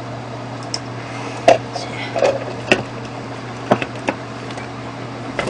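Several sharp plastic clicks and knocks, about a second apart, the loudest about a second and a half in, as a stick blender's motor unit is handled and fitted onto its plastic chopper bowl. The blender motor is not running.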